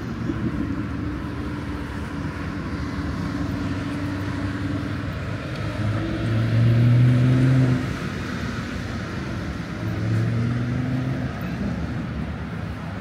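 Motor vehicle engines in passing traffic, with a steady low hum that grows loudest as vehicles go by close, about six to eight seconds in and again around ten seconds in.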